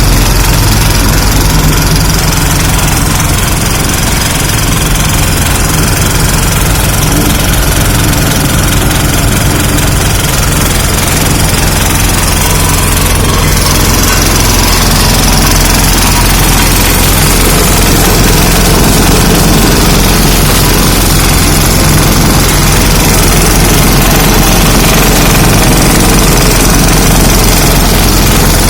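Greaves 10 HP single-cylinder diesel engine of a walk-behind road roller running steadily and loud.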